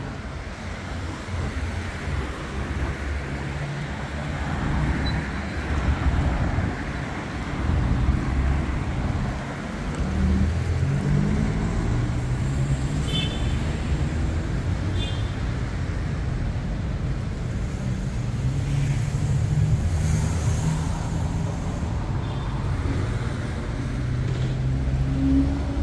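Street traffic: car engines running and passing close by, with tyre and road noise. One engine's pitch rises as it speeds up around the middle.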